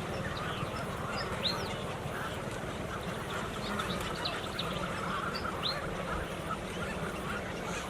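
A large flock of birds calling together: a dense, continuous chatter of many overlapping calls with scattered short, higher chirps, over a steady low hum.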